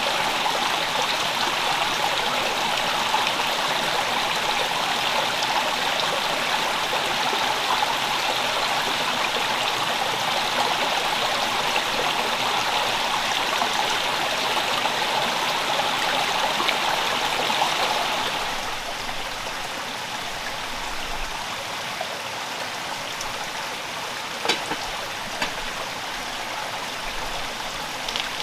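Small forest stream running over rocks, a steady rush of water. About eighteen seconds in it becomes softer and thinner, and a few light clicks come through near the end.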